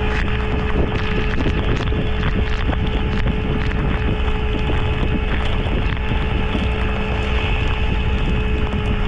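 A heavy tow truck's engine running steadily, with wind buffeting the microphone and scattered light ticks and knocks throughout.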